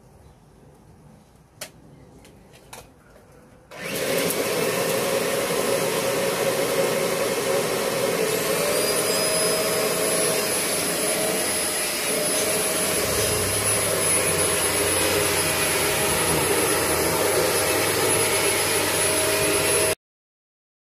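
Kirby upright vacuum cleaner, converted to bagless, running steadily on a rug with a high whine over its motor noise. It starts about four seconds in, after a few light clicks, and cuts off suddenly near the end.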